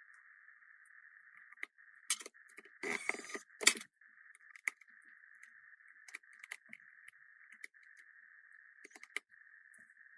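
Small metal clicks and clinks of a screwdriver and tiny phone screws being handled on the workbench, with a short rattle about three seconds in and a sharp click just after. A faint steady hiss sits underneath.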